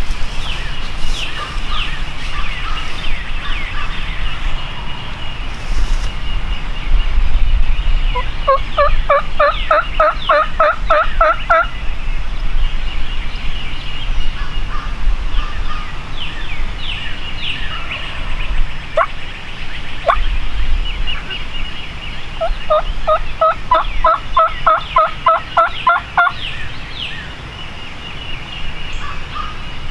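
Wild turkey yelping: two runs of about a dozen evenly spaced notes, the first about 8 seconds in and the second about 22 seconds in. Songbirds chirp throughout over a low wind rumble.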